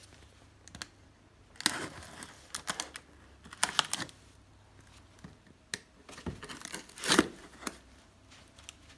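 Packaging being handled and torn open as a battery is pulled from its box: irregular rustling and crinkling with a few sharp clicks, the loudest rustles about 2, 4 and 7 seconds in.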